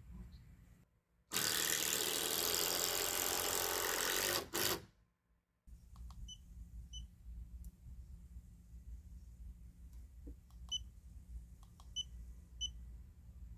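Handheld laser distance meter beeping: five short high beeps spread over several seconds as measurements are taken, with faint button clicks. Near the start a loud burst of steady, even noise of unclear source lasts about three seconds and is the loudest thing heard.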